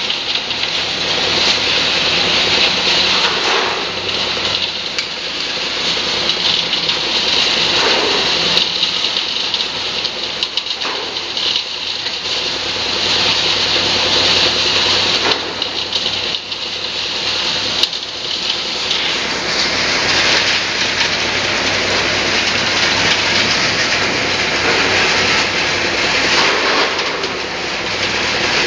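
ZSF30 concrete reclaimer running and washing leftover concrete: a steady rush of water and machine noise, with a low hum underneath.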